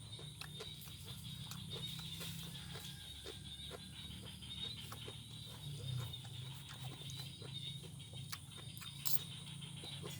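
Close-up chewing of a raw vegetable salad (cabbage, long beans, cucumber), with irregular crisp crunches a few times a second over a steady low hum; one sharper click about nine seconds in.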